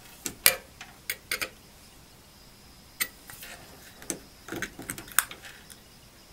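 Scattered light metallic clicks and taps as the metal tip of a CRT discharge probe touches the terminals of a power supply's large filter capacitors. There is no spark or crackle: the capacitors are already discharged.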